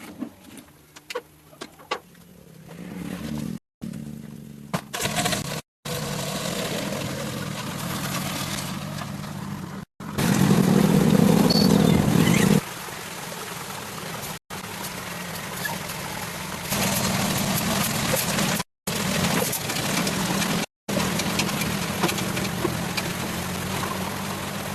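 An engine running steadily, in several short clips broken by abrupt cuts, loudest for a couple of seconds about ten seconds in. Scattered clicks and knocks come before it in the first few seconds.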